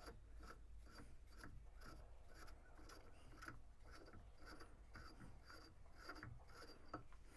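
Faint scratching and light ticking, about two or three a second: a marker or tool scraping against the inside of a hollowed-out plastic shifter knob.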